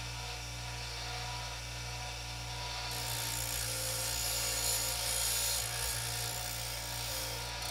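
Bench grinder's motor running with a steady hum while a rusty steel bracket is held against its wire wheel, adding a brushing hiss from about three seconds in as the rust is scrubbed off. Right at the end the motor starts to spin down.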